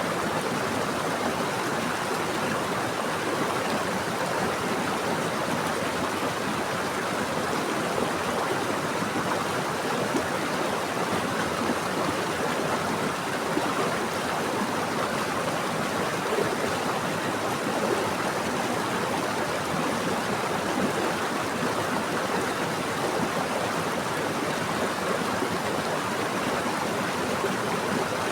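Water flowing steadily in a stream or river, a constant rushing with no change.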